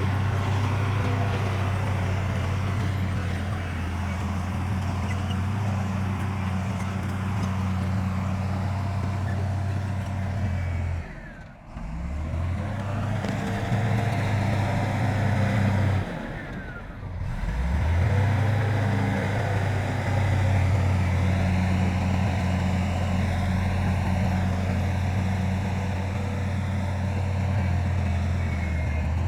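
Heavy diesel earthmoving machinery, a bulldozer or dump truck, running with a steady low drone. It drops away briefly twice, about eleven and seventeen seconds in, then resumes.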